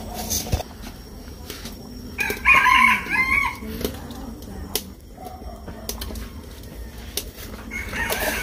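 A rooster crowing once, a call of about a second starting about two seconds in, with scattered light clicks and knocks around it.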